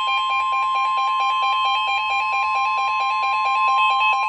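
Emergency Alert System attention tone: a loud, steady high tone with a lower tone pulsing rapidly beneath it. It is the alarm that comes before a broadcast tornado warning.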